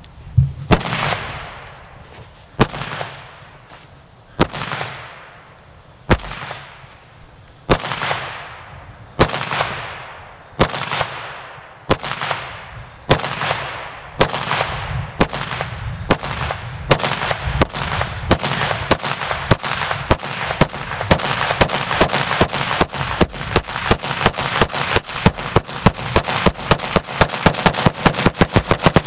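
Digital maroons (small salutes) fired electrically one after another: single sharp bangs, each with a decaying echo. They start about one every second and a half and speed up steadily into a rapid rattle of several bangs a second near the end.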